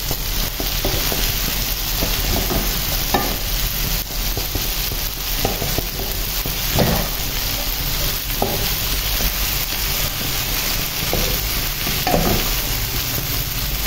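Chopped okra with tomato and onion sizzling in a frying pan, stirred every second or two, each stroke a short scrape over the steady sizzle. The okra is being sautéed in the spiced masala until its sliminess cooks off.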